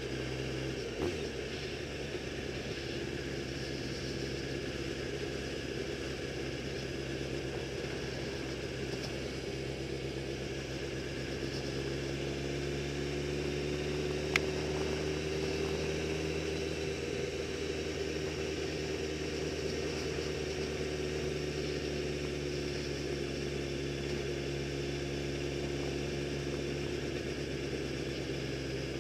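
Custom motorcycle engine running steadily while cruising, its pitch rising and falling slightly midway. One sharp click near the middle.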